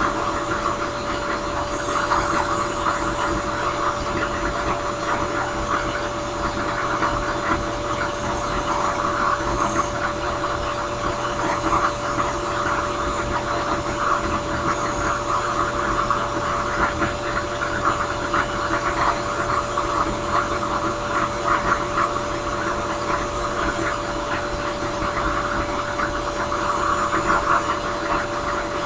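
Drill press spinning a sanding drum, a steady motor hum with a constant whine, and the rasp of briar wood held against the abrasive sleeve while a pipe bowl is shaped.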